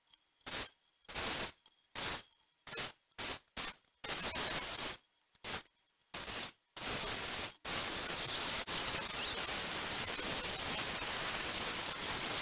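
Electric angle grinder grinding a fiberglass sailboat hull, the audio sped up so it comes across as a harsh, even hiss. It runs in about a dozen short bursts with dead silence between them, then runs without a break from a little past halfway.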